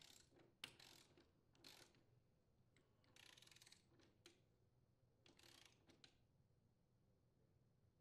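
Faint ratcheting clicks of a torque wrench tightening the lawn mower's blade mounting bolt: single ticks with two short runs of rapid clicking.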